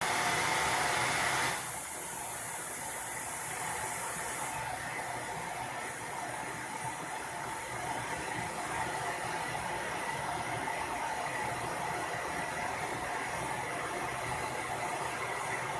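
Television static: a steady hiss of white noise, a little louder for the first second and a half, then settling slightly lower and staying even.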